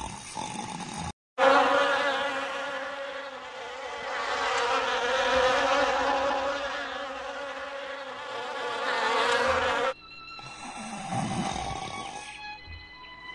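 A steady insect buzz in flight that swells and fades, starting and stopping abruptly as if cut in.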